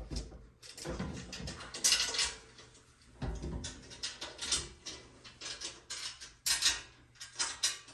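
Metal roof-rack parts and hardware clinking, rattling and knocking as they are handled and fitted together, with a few dull thumps among irregular jingly clicks.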